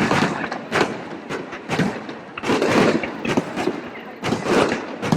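Aerial fireworks shells bursting in quick succession, about ten sharp bangs, some only a fraction of a second apart, each trailing off in a rolling echo.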